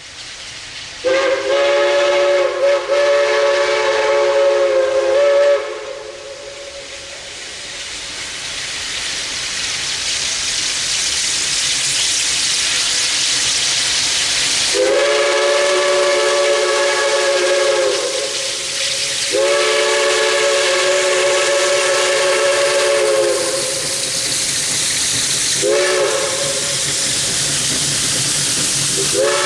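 Steam locomotive No. 113's multi-chime steam whistle sounding a chord: one long blast about a second in, then two long blasts, a short one and the start of another long one, the pattern of a grade-crossing signal. Between the blasts a steady hiss and rush of steam exhaust grows louder as the engine approaches.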